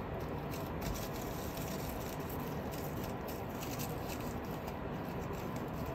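Tortoiseshell cat chewing and gnawing a small pink plush toy: a run of soft, quick little clicks and crackles over a steady background hiss.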